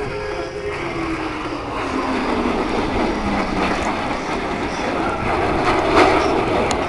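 Blue Angels F/A-18 Hornet jets flying past, a steady jet roar with a whine that falls steadily in pitch over the first few seconds. The roar grows louder later on, with a sharp click about six seconds in.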